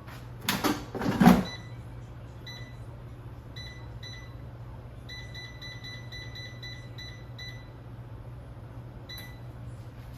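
A few knocks and clatters, then a kitchen appliance's keypad beeping as its buttons are pressed: a few single beeps, then a quick run of about ten, over a low steady hum.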